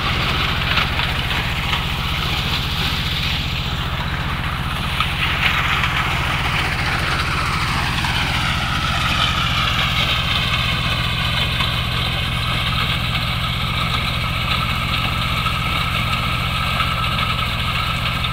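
Corn combine harvester running: a steady low engine drone, with a higher whine that shifts in pitch about halfway through and then holds steady.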